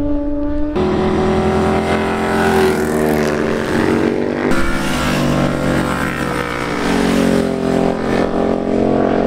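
Motorcycle engines running at speed through the bends, their pitch shifting with the throttle. The sound changes abruptly about a second in and again around the middle.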